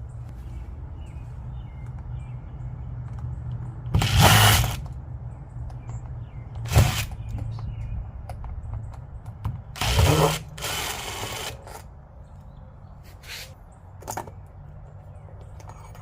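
A power drill-driver run in short bursts, backing out the screws that hold the door knob's lockset in the steel door, the longest runs about four seconds in and around ten seconds, with a few shorter sounds of tool handling.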